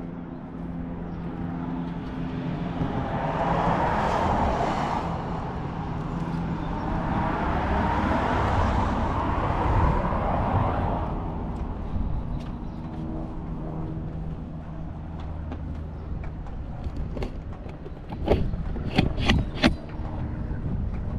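A heavy diesel engine idling with a steady low hum, while a passing vehicle's road noise swells and fades twice between about 3 and 11 seconds. A few sharp knocks come near the end.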